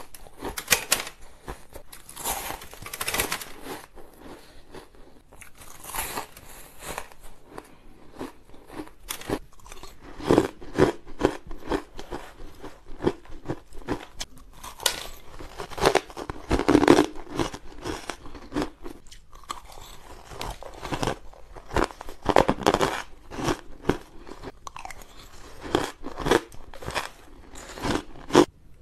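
Ice being bitten and chewed: first a chunk of powdery white ice, later spoonfuls of shaved ice, in irregular runs of crisp crunches with short pauses between mouthfuls.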